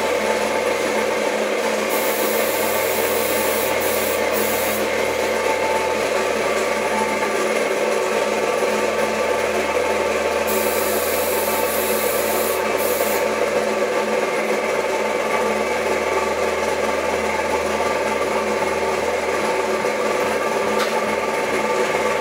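An air compressor runs with a steady mechanical drone. Over it a compressed-air paint spray gun hisses in two bursts of a few seconds each, about two seconds in and again near the middle, each broken by brief releases of the trigger.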